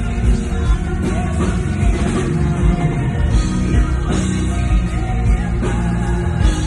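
Live band playing a loud pop-rock song with a heavy bass and a steady beat.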